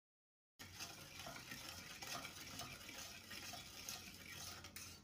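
Wooden spoon stirring liquid in a stainless steel saucepan, scraping and swishing in repeated strokes, starting about half a second in.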